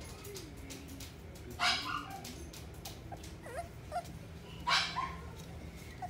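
Frenchton puppies (French bulldog–Boston terrier crosses) vocalising as they play-fight: two short, sharp yips about two and five seconds in, with small whimpers and squeaks between.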